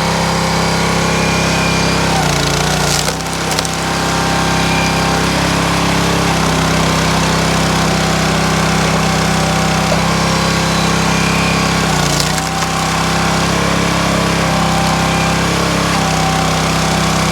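Small-engine log splitter running steadily. The engine bogs down twice, about two and twelve seconds in, as the ram forces through a log, each time with a sharp crack of the wood splitting.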